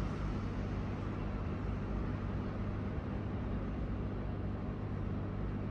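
Hot air rework station blowing steadily as a small chip is reflowed back onto a MacBook logic board: an even rush of air with a low hum under it.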